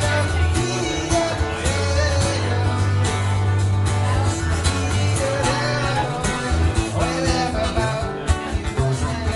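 Acoustic guitar playing with a singing voice over it: a solo acoustic song performance.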